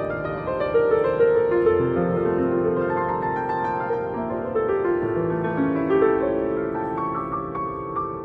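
Piano-like keyboard playing a slow melody of held notes over changing chords, with a higher note repeated near the end.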